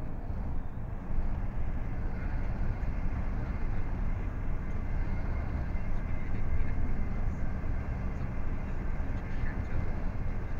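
Lorry engine and road noise heard from inside the cab while driving: a steady low rumble with a faint steady high whine.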